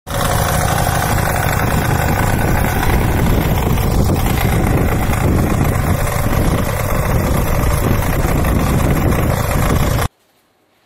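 Walk-behind power weeder (two-wheel tiller) engine running steadily while it pulls a seed drill through tilled soil. The sound cuts off abruptly near the end.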